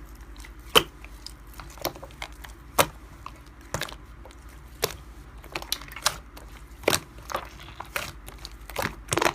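Slime being pressed and worked by hand, giving irregular sharp clicks and pops, about one every second.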